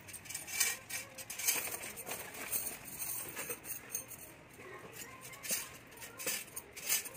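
Glass chandelier rods clinking lightly against each other and the metal fittings as they are handled, with rustling of the packing wrap, in irregular short clicks.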